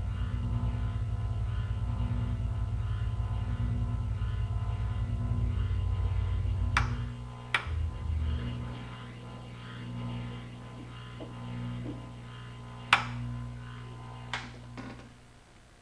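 Hammond M-100 series (M-111) tonewheel organ's held notes sinking and fading as the tonewheel generator spins down after the organ is switched off, going quieter the lower the pitch drops until the tone dies out. A few sharp clicks sound about seven seconds in and again near the end.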